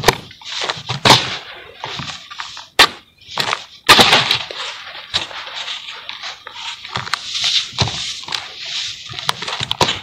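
Hands crumbling and raking through dry, lumpy sand-and-cement mix in a tub: a continuous gritty crunching and rustling, broken by a few sharp cracks.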